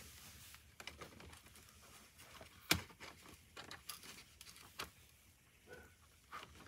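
Faint, scattered plastic clicks and scrapes of a Cardo Packtalk Edge intercom mount being worked against a Shoei Neotec 3 helmet shell, with one sharper click a little under three seconds in.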